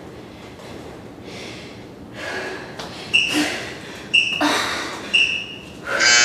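Hard breathing during a fast floor exercise, then a workout interval timer counting down: three short high beeps a second apart, followed near the end by a long buzzer marking the end of the interval.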